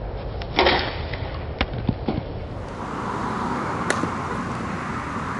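Softball bat striking a ball off a batting tee: one loud, sharp crack about half a second in, followed by a couple of faint clicks. Near the end comes a lighter, sharp click of the bat meeting a pitched ball on a bunt, over a steady outdoor hiss.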